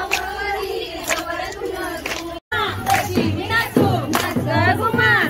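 A group of women and girls singing and calling out together in a traditional Marathi Gauri folk dance game, many voices overlapping. About halfway through the sound cuts briefly, then the voices go on over a steady low beat.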